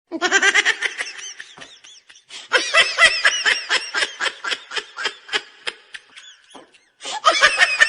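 High-pitched laughter in quick rhythmic bursts, in three bouts with short breaks between them.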